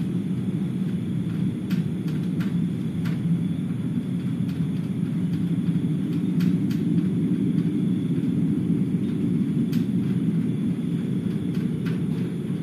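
A continuous low rumbling drone overhead, like many aircraft flying low that never move off, holding steady without rising or fading, with a few faint sharp ticks scattered through it. Its source is unknown: the recordist rules out an air conditioner and notes there is no factory in the area.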